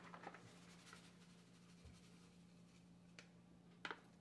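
Near silence: room tone with a faint low steady hum, and two faint short ticks near the end.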